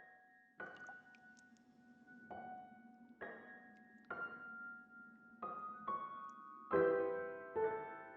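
Solo piano playing slow, separate notes and chords, each left to ring and fade, building to a louder, fuller chord near the end.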